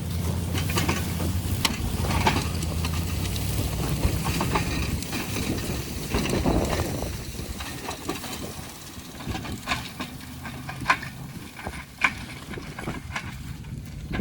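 A vehicle engine running steadily for about the first half, then fading out under a scatter of clicks and knocks.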